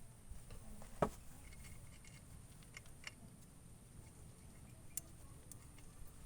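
A few scattered light clicks and taps, with one louder knock about a second in, over a faint low rumble.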